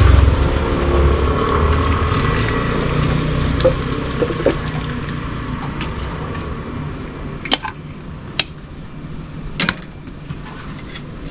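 A low rumble with a noisy hiss that fades away over the first several seconds. Over it come a few sharp clinks of a metal ladle and strainer against the broth pot and a bowl.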